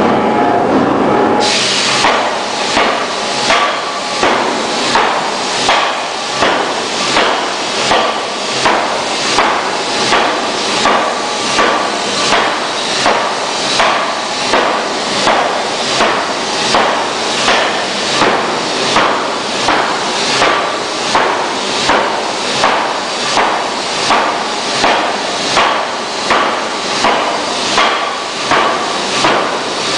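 C41-2000kg pneumatic forging hammer's ram striking a red-hot steel flange ring on the anvil die in a steady run of heavy blows. The blows begin about a second and a half in and keep an even pace of about one and a half a second.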